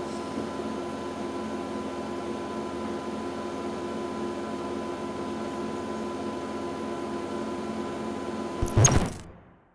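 Steady mechanical hum with a few steady tones, from an elemental analyser–isotope-ratio mass spectrometer (EA-IRMS) with its pumps and fans running. Near the end comes a short, loud thump, and the sound then dies away to silence.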